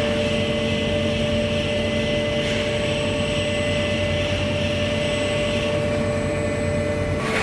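Steady hum of a running concrete block production line: motors and hydraulics of the block machine and its rack handling system, with several constant tones and a hiss that drops away about six seconds in.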